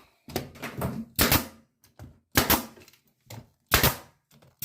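Floor trim piece being nailed down: four loud, sharp nailing shots about a second apart, with smaller knocks between them.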